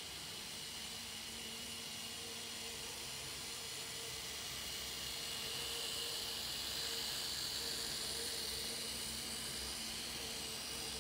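Z-scale model train running on its track: the tiny electric motors of two locomotives whirr with a high hiss of wheels on the rails, growing louder in the middle as the train passes closest and easing off towards the end.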